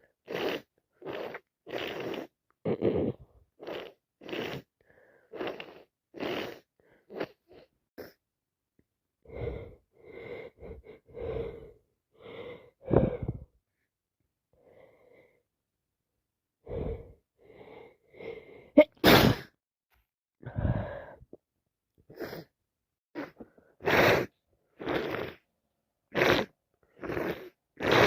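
A person with a head cold sneezing over and over in a long run of short bursts, roughly one a second, with a lull of a few seconds in the middle. The loudest sneezes come in the second half.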